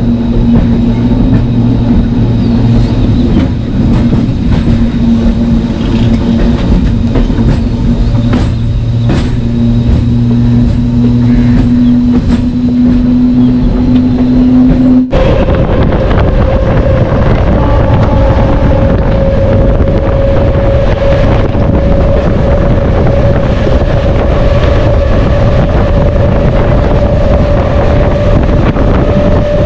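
MEMU electric passenger train running along the line, with a steady whine slowly rising in pitch as it picks up speed and scattered clicks from the wheels over rail joints. About halfway through the whine jumps abruptly to a higher pitch and goes on rising slowly.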